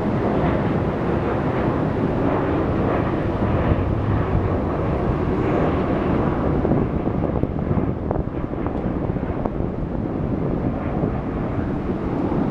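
Steady outdoor noise with a low rumble and hiss, with a few faint clicks in the second half.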